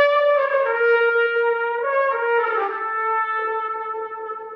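Trumpet playing a short phrase of several notes, settling into a long held note that fades away near the end.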